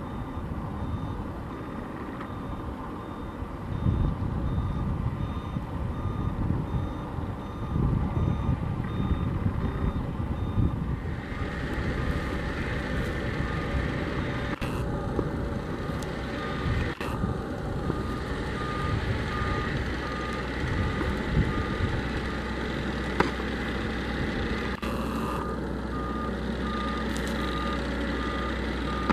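Ground-support vehicle's backup alarm beeping in an even, repeating series while an aircraft tug moves the Airbus A220, over the low running of an engine. The beeps are higher-pitched for the first third, and a lower-pitched beep takes over about halfway in.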